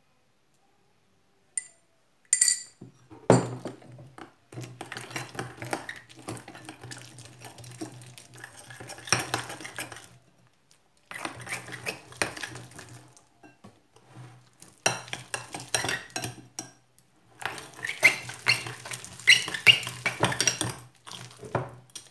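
Metal spoon stirring and scraping against a glass bowl, working borax activator into slime. It comes in runs broken by short pauses, after a couple of light clinks about two seconds in.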